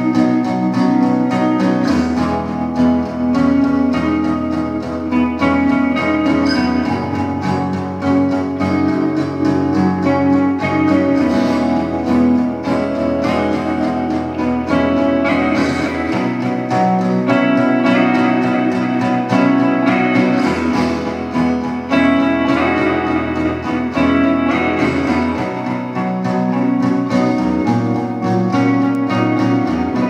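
Acoustic guitar and electric guitar playing together live, an instrumental passage without singing: strummed chords under long sustained electric guitar notes. The music thins out right at the end.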